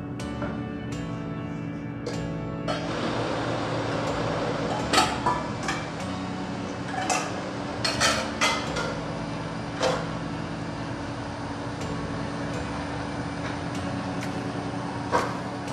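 Several sharp knocks and clinks of kitchen utensils and dishes being handled over a steady hiss, with quiet background music underneath.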